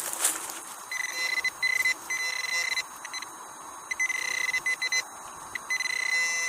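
Metal detector signalling a target with a steady high beep that cuts in and out repeatedly as it passes over the target. A short rustling burst comes right at the start.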